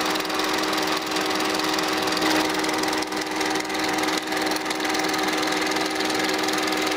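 35 mm film projector running: a steady, rapid mechanical clatter from the film-transport mechanism over a constant hum.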